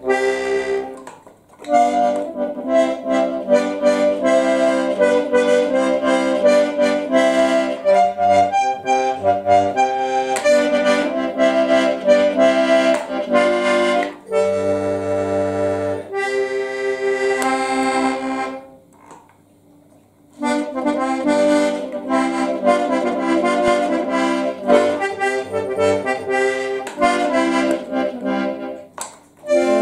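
A Hohner button accordion played solo: a melody over chords and bass notes, with a sustained chord a little past halfway and a couple of short breaks between phrases, the longest about two-thirds of the way through.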